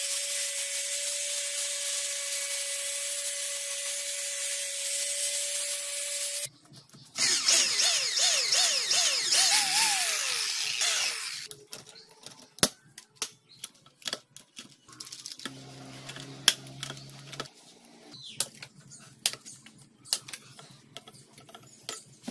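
Angle grinder running steadily against a stainless steel sheet for about six seconds. A power drill then runs in spurts for about four seconds, its pitch rising and falling, followed by scattered clicks and taps of pliers twisting tie wire.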